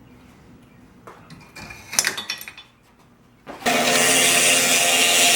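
A few light metal clinks and handling knocks, then about three and a half seconds in a power tool starts abruptly and runs loud and steady.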